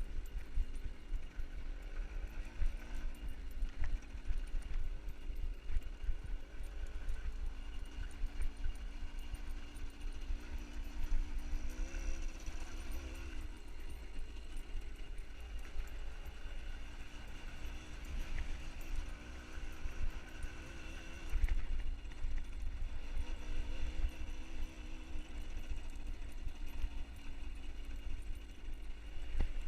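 A small engine running outdoors, its pitch wavering up and down, under a constant low rumble of wind buffeting the microphone.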